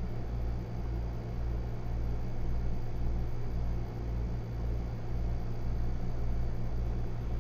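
Steady low background hum with a slow, even throb in its deepest part, a little more than once a second; nothing else stands out.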